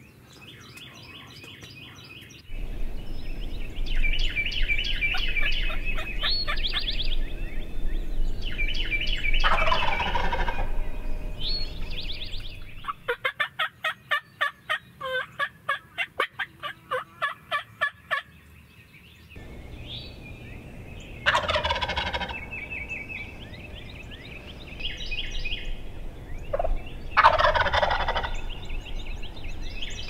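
Wild turkey gobblers gobbling several times, each gobble a short rattling burst. In the middle comes a run of short, evenly spaced calls, about three a second, and smaller chirping calls are heard between the gobbles.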